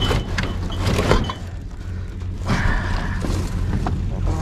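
Scrap and junk being shifted around in a dumpster: sharp clanks and knocks, then rattling and scraping, over a steady low hum.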